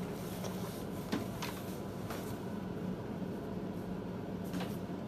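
Several faint light clicks and taps from small tools and cable parts being handled on a bench mat, over a steady low hum.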